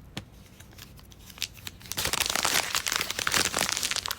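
Small plastic toy packaging being handled: a few light clicks and rustles, then from about two seconds in a dense stretch of crinkling plastic as the wrapper is worked open.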